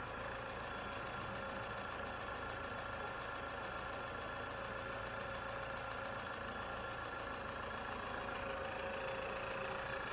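GM 1.5-litre turbocharged four-cylinder engine of a Chevy Malibu idling steadily, running after a vacuum pump replacement, with a faint steady whine over the idle.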